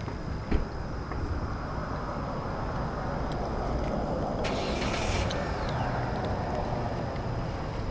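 A car passing by on the road, its tyre and engine noise swelling to a peak about five seconds in and then easing off, with a brief hiss at the peak. A single sharp knock comes about half a second in.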